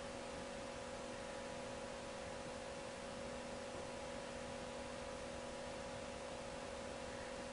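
Steady electrical hum over an even background hiss, unchanging throughout.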